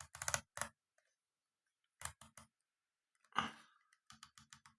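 Minolta AF-Sv compact film camera's ASA film-speed ring being turned, clicking through its detent stops in short runs of quick, faint clicks, with one slightly louder click about three and a half seconds in.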